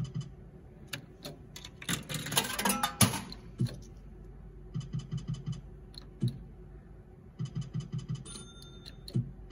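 Electronic sound effects of a Zeus Glory bar video slot machine: rapid ticking runs as the reels spin and stop, with a louder burst of sound about two seconds in.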